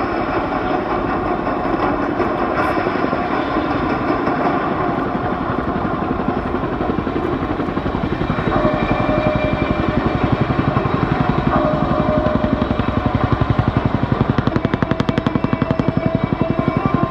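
Military helicopters flying past with loud, steady rotor and turbine noise. From about eight seconds in it grows louder, with a rapid rotor-blade beat and a steady turbine whine.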